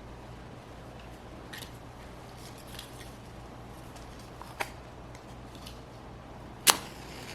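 Scissors snipping a few times, sparse single cuts with the loudest and sharpest one near the end, over a low steady hum.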